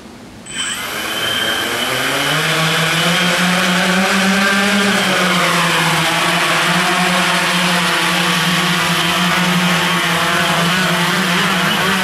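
Hexacopter's six small electric motors and propellers spinning up about half a second in: a hum that rises in pitch over the next couple of seconds as it takes off, dips briefly in the middle, then holds as a steady buzz while it hovers and climbs.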